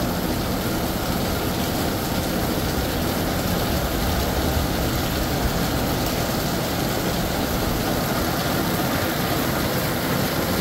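Heavy rain pouring steadily, an even unbroken rush with no let-up.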